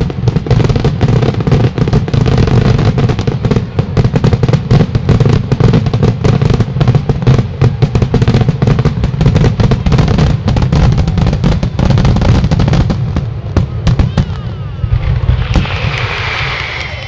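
Fireworks display finale: a dense, rapid barrage of bursting shells and bangs, many reports a second. Near the end it thins out into the fizzing crackle of glittering stars.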